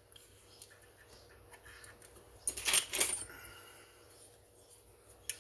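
Metal hand tool clinking and rattling against the chainsaw handle's screws as the handle is unfastened: scattered small clicks, with a burst of sharp metallic clinks between about two and a half and three seconds in.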